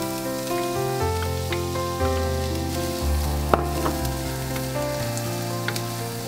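Diced onions sizzling in hot oil in a frying pan as they go in and are stirred with a wooden spoon, with a few sharp clicks on the pan, the loudest about three and a half seconds in. Soft background music with bass notes plays underneath.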